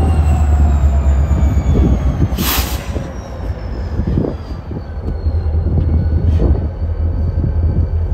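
Diesel freight locomotive running at low throttle as it shoves its train slowly, with a steady low engine rumble. Thin high wheel squeal slowly falls in pitch, and a brief hissing burst comes about two and a half seconds in.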